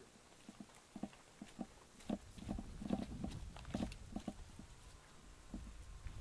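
Footsteps and gear rattle of a player moving on foot, irregular short knocks that grow denser and louder about two seconds in, with a low rumble on the microphone.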